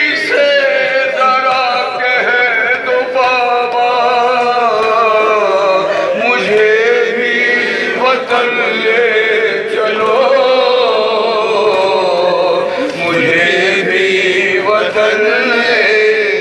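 A man chanting an Urdu noha, a Shia elegy, in long drawn-out melodic lines whose pitch wavers and bends.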